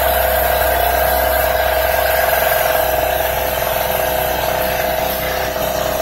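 Harbor Freight 700-watt TailGator portable generator's engine running at a steady speed, an even drone with a constant whine on top. It is under almost no load, powering a battery charger that draws less than a watt.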